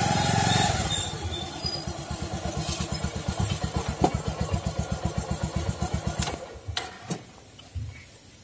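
Motorcycle engine running as the bike pulls up and slows to an idle, its exhaust pulsing evenly about ten times a second, then switched off about six seconds in. A few sharp clicks and clunks follow as the rider gets off.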